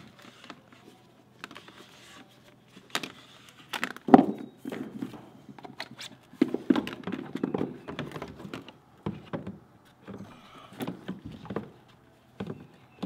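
A hand PVC pipe cutter clicking through a white plastic drain tailpiece, followed by irregular knocks and scrapes of the plastic pipe pieces as they are handled and test-fitted at the tub drain. The loudest knock comes about four seconds in.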